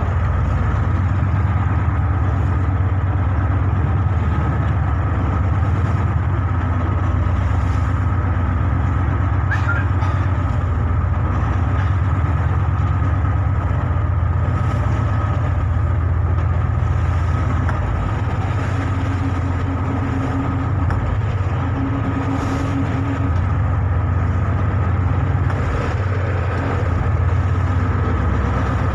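Harbour launch's engine running steadily, heard from on board as a constant low drone with a faint steady whine above it.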